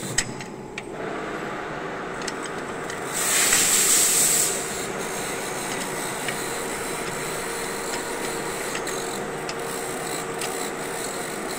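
16K20 screw-cutting lathe running with a steady mechanical hum, and sharp clicks from its apron levers being worked by hand. About three seconds in there is a louder hiss lasting just over a second.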